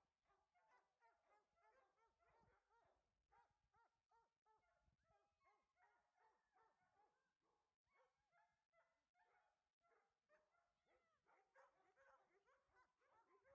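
A chorus of many kennel dogs barking and yelping over one another without a break, very faint.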